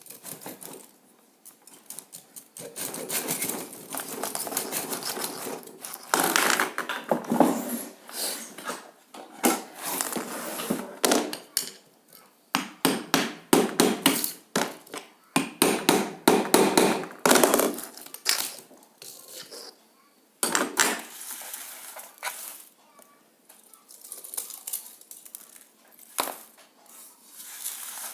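Irregular metallic knocks and clanks of hand tools striking and scraping metal, in clusters with short pauses between them, as when working on a microwave oven transformer's core and coils.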